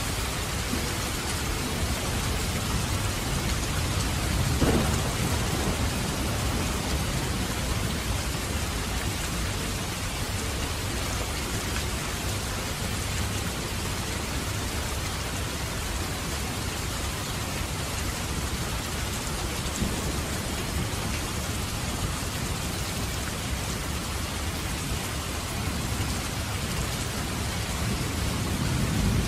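Steady rain falling, an even hiss with no break. A low rumble swells about five seconds in and again near the end.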